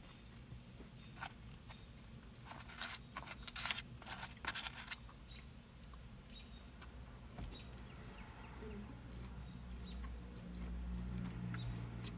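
Faint eating sounds: a plastic takeout tray clicking and crackling as a chicken nugget is picked out, then quiet chewing. A low closed-mouth hum comes in near the end as she tastes it.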